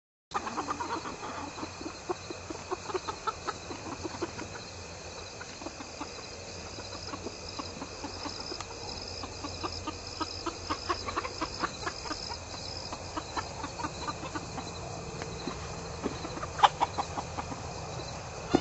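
Chickens clucking over and over, with one much louder sharp sound near the end.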